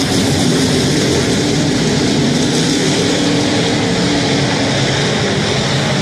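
Dirt-track race car engines running loud and steady, several engines at once as the cars circle the track.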